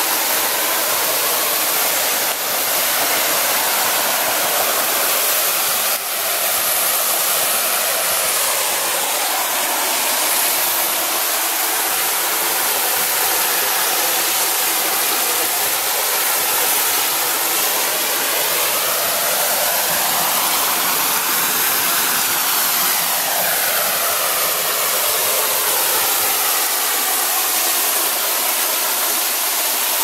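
A thin free-falling waterfall splashing into a shallow rock pool: a loud, steady hiss of falling water whose tone slowly sweeps up and down.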